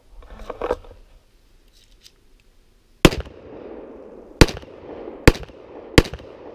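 Four handgun shots in the second half, a second or less apart, each followed by a trailing echo.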